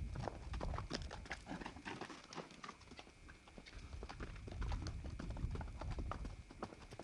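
Arabian stallion's hooves striking a dirt paddock as he trots loose, a quick irregular run of soft thuds. A low rumble swells near the start and again past the middle.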